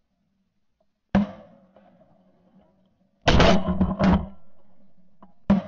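Shotgun blasts from several duck hunters firing at a passing flock: a single shot about a second in, a quick volley of shots at three to four seconds, and another shot near the end.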